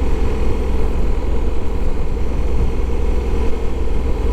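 Riding noise on a Honda Africa Twin 1100 motorcycle: wind rushing over the microphone together with the bike's parallel-twin engine running, a steady dense low rumble.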